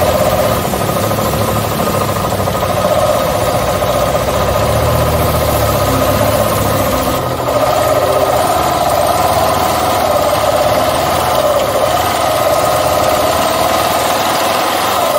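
Motorcycle engine running while riding at low speed, its note rising and falling a little with the throttle; the deeper rumble eases off about halfway through.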